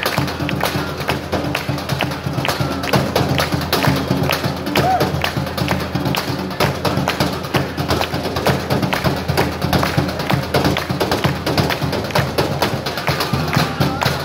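Rapid, rhythmic drumming with drumsticks on a set of metal trash cans and upturned can lids, played by two drummers as a percussion routine with many quick strikes.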